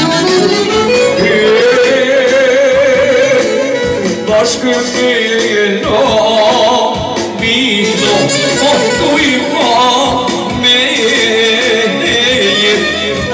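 Live Albanian folk music: a male singer holding long, ornamented notes with heavy vibrato, with a clarinet playing wavering, trilled phrases above the voice.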